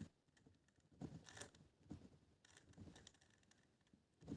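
Faint, scattered clicks of a Rubik's cube's plastic layers being turned by hand, a few short twists over the span.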